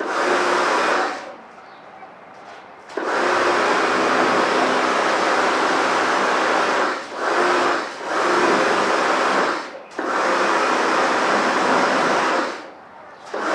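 Karcher K2 electric pressure washer spraying water, its pump running in stretches of one to four seconds and cutting out between them each time the trigger is released, about six times.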